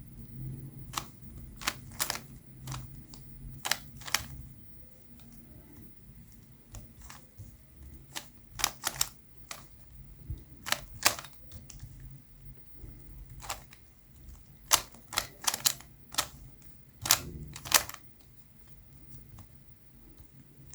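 Plastic clicks and clacks of a Rubik's Cube's layers being turned by hand, irregular, with some quick runs of two or three turns in a row.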